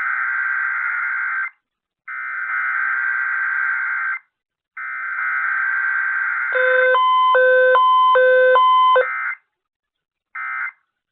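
Emergency Alert System SAME header data tones: three shrill warbling bursts, each about two seconds long with short gaps between them. During the third burst a beeping tone steps up and down between a low and a higher pitch for about two and a half seconds. Near the end comes one short data burst, the start of the end-of-message code.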